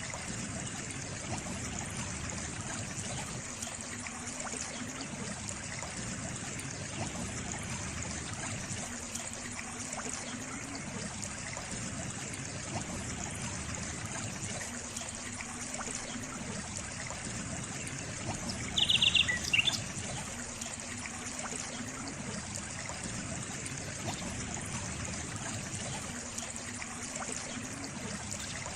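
Water trickling and running steadily, like a small stream. About two-thirds of the way in, a bird gives one short, rapid call that ends in a falling note, louder than the water.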